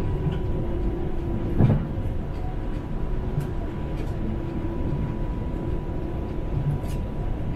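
Interior running noise of a Chongqing Line 3 rubber-tyred straddle-beam monorail train in motion: a steady rumble with a thin steady hum above it. A single knock about a second and a half in.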